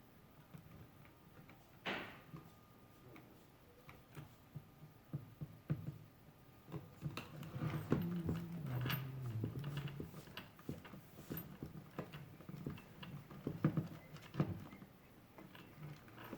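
Scattered light clicks and knocks of small things being handled, busier in the second half, with a short low wavering murmur about eight to ten seconds in.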